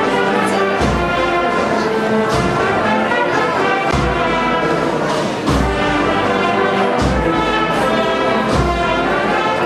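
Procession brass band playing a Holy Week march: held brass chords over a bass drum struck about every one and a half seconds.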